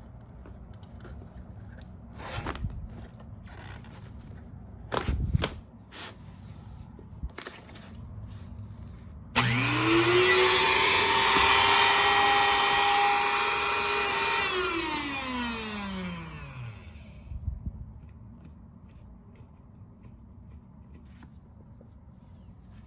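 A few handling knocks and clicks, then a small electric motor switched on. It spins up at once to a steady whine with airy hiss, runs for about five seconds, then is switched off and winds down, its pitch falling over two or three seconds.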